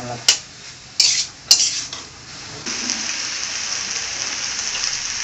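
Metal spoon knocking and scraping against an iron kadai while a spiced raw-banana masala is stirred, with three sharp clicks in the first two seconds. About two and a half seconds in, a steady frying sizzle takes over.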